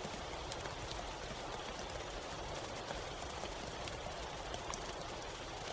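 Steady rain falling, an even hiss with scattered sharp drops striking close by.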